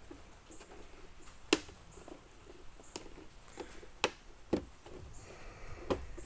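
Hard plastic clicking and tapping as a molded plastic roof rack's pegs are pressed into the holes of a hard plastic RC truck body by hand: about five sharp, irregular clicks over faint handling rustle.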